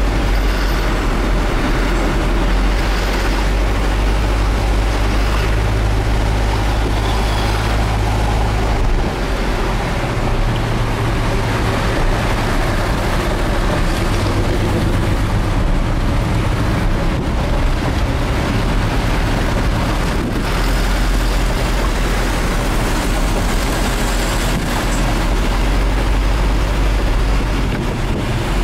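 Truck engine running steadily under way, heard from inside the cab with tyre and road noise. A loud, deep hum shifts in pitch a few times as the speed changes.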